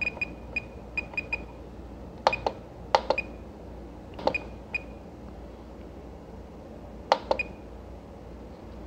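RadioMaster TX16S radio transmitter giving short high beeps as its scroll wheel is turned through the menus, with a few sharper clicks and beeps when the wheel is pressed to select, about two, three, four and seven seconds in.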